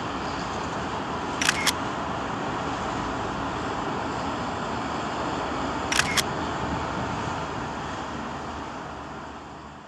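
Steady road noise of a moving vehicle, broken twice by a quick double click, fading out near the end.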